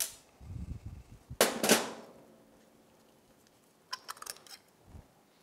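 Hard plastic and metal parts of an outboard's vapor separator tank and its electric fuel pump clacking and clicking as they are handled on a steel tray. The loudest are two sharp clacks about a second and a half in, followed later by a quick run of light clicks and a soft knock.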